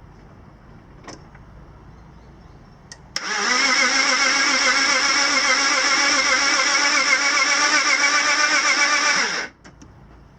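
BMW 330i's M54 straight-six cranking on the starter for about six seconds with its fuel pump disabled, turning over steadily and not firing, then cutting off suddenly. It is spinning with virtually no compression on any cylinder.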